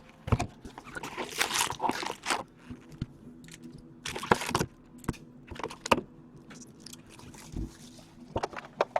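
Foil trading-card packs and their cardboard boxes being handled and set down on a table: irregular crinkling rustles and light taps.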